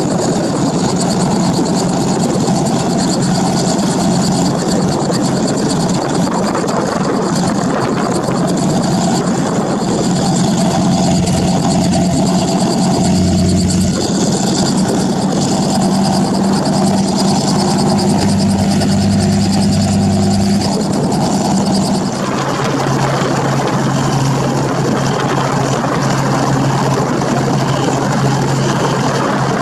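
Robinson R44 Raven II helicopter, with its six-cylinder Lycoming IO-540 piston engine, running on the ground with the main and tail rotors turning, ahead of lift-off. Steady engine and rotor sound, whose low tone shifts about two-thirds of the way through.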